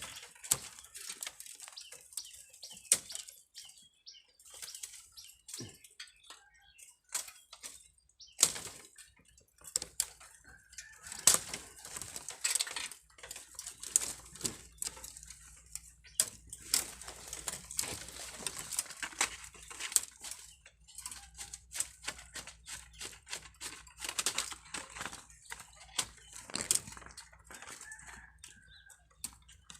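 Leaves and twigs rustling and crackling as branches are handled and pushed through, a string of irregular sharp snaps and rustles, busiest in the middle.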